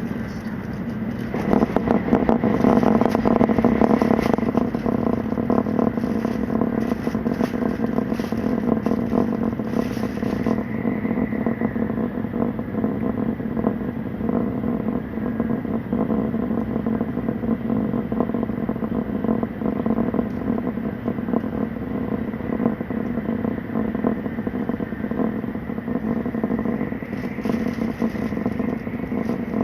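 Tokaido Shinkansen train running at speed, heard from inside the passenger car: a steady rumble that grows louder about a second and a half in. A crackling hiss rides over it for the first ten seconds and comes back near the end.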